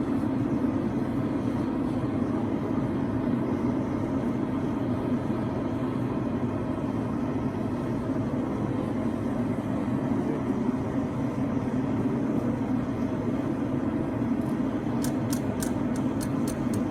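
Forge burner running with a steady, even rushing noise. Near the end, a quick run of light hammer blows, about five a second, begins as the hot, thin steel finger guard is curved over the horn of the anvil.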